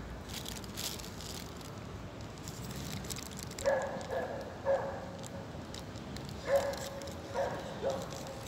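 A dog barking: a run of short barks starting a few seconds in, then another run near the end.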